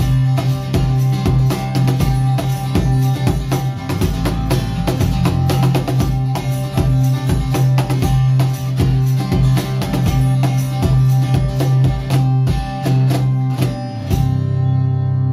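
Live acoustic band playing without vocals: acoustic guitar strumming, bass guitar holding a low note, and a steady cajon beat. The drumming stops about a second before the end while the final chord rings on.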